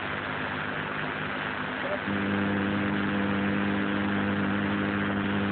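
A steady low droning hum at one held pitch, which suddenly grows louder and fuller about two seconds in and then holds steady.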